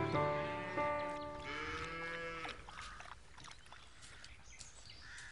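A cow mooing: one drawn-out call with a slight rise in pitch, which ends about two and a half seconds in.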